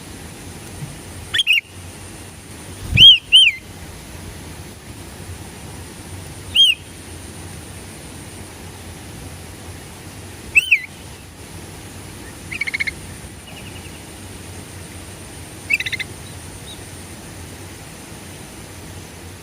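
Sooty-headed bulbul (kutilang) calling: short, loud up-and-down notes every few seconds, once as a quick pair, and twice later as brief rattling notes, over a steady background hiss.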